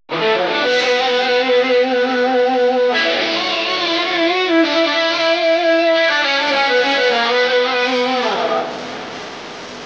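Background music on guitar, held chords that change about every three seconds. It stops about eight seconds in, leaving a steady hiss.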